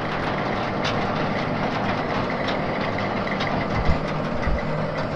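Tractor engine running steadily while a Gehl feed wagon's unloading mechanism rattles, discharging feed onto the ground: a continuous mechanical din with light ticks in it.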